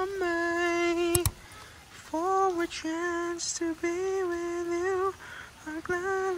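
A single voice humming a slow, wordless tune in long held notes, with a gap between phrases and a couple of sharp clicks about a second in.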